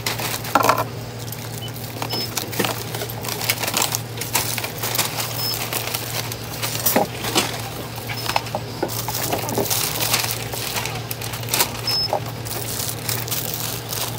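Checkout counter being worked: a barcode scanner gives four short high beeps a few seconds apart while packets and bags rustle and crinkle, with scattered light knocks over a steady low hum.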